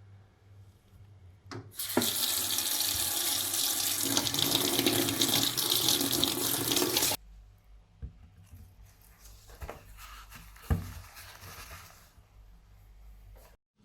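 Water running from a tap into a sink for about five seconds, switched on and off abruptly. It is followed by fainter splashing and handling noise with a few knocks.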